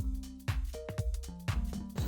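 Background music with a regular beat and held bass notes.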